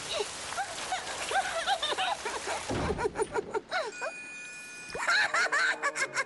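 Cartoon downpour sound effect: rain hissing for about the first three seconds, then a quieter stretch with a few held musical tones, then a run of quick wet dripping and splashing sounds near the end.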